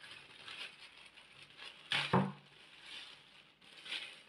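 Clear plastic bag crinkling and rustling as the pressure washer's spray gun is unwrapped by hand, with sharper crackles about two seconds in and again near the end.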